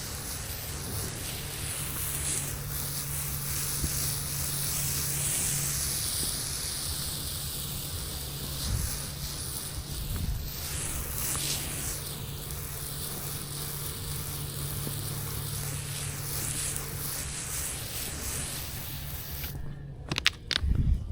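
Steady hiss of a sodium hypochlorite cleaning mix being sprayed onto a concrete driveway, over a low steady hum. Near the end the spray cuts off, followed by a few short knocks.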